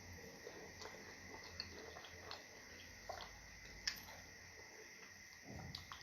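Faint wet eating sounds: fufu and stew being squished and chewed, with scattered small clicks and one sharper click about four seconds in.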